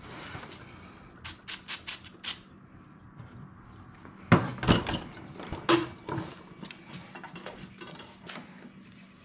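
Handling noise of a car alternator and its parts on a sheet-metal workbench: a quick run of five sharp clicks about a second in, then a few louder metal knocks around the middle and lighter clicks after.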